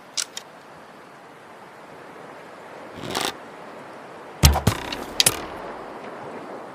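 Bow-and-arrow sound effects: two short clicks, then a whoosh about three seconds in, then a sharp thud about four and a half seconds in followed by a few rattling clicks.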